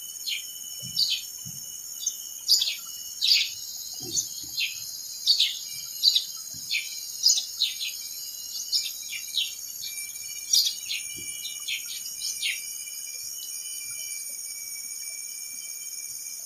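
Bird calling over and over in short, downward-sliding chirps, one or two a second, that thin out and stop after about twelve seconds, over a steady high-pitched insect drone.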